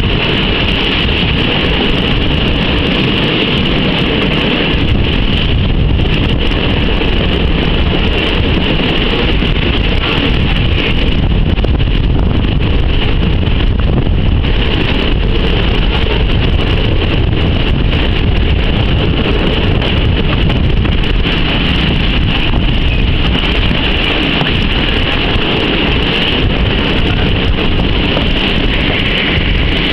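Passenger train coach running into a station, heard from an open window: a steady rolling noise with a constant high hiss or squeal, and wind on the microphone.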